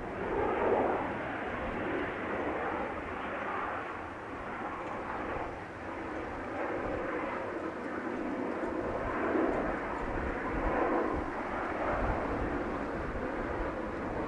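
Jet engines of a Boeing 767 airliner running on the runway, heard from across the airfield as a steady, rushing roar that swells and fades a little.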